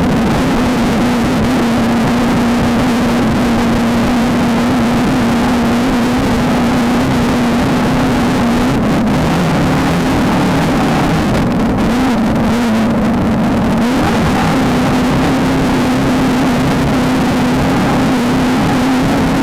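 Off-road race car's engine running hard at steady high revs over a loud rushing noise, the revs dipping briefly about nine seconds in and again around twelve seconds.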